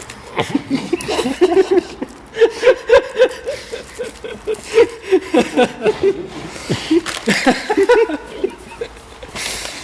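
People laughing in many short, choppy bursts.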